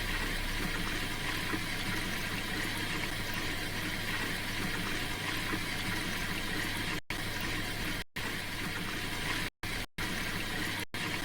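Silfa washing machine turning its drum in a slow 150 rpm spin with an unbalanced load: a steady running noise with water swishing and a low hum, broken by several very short dropouts in the second half.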